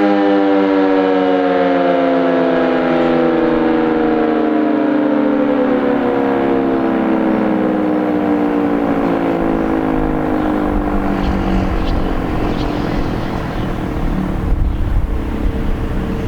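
Battery-powered (DC) Sentry 15V2T-B two-tone outdoor warning siren winding down at the end of its 4-minute alert, its chord falling steadily in pitch and slowly fading.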